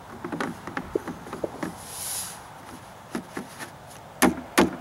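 Mailbox post's elbow arm piece clicking and knocking as it is slid into the groove of the post. Near the end comes a run of regular knocks, about three a second, as it is tapped down into place.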